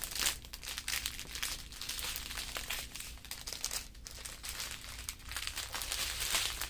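Small plastic bags of diamond painting drills crinkling and rustling as they are handled, a steady run of irregular crackles.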